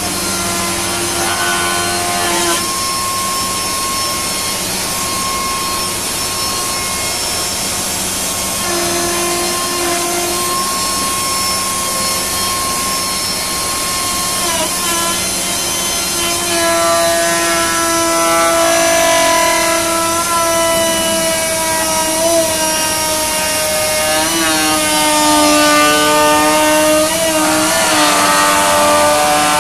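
Robot-held high-speed router spindle cutting plastic: a steady whine made of several tones, whose pitch dips and wavers as the bit loads in the cut.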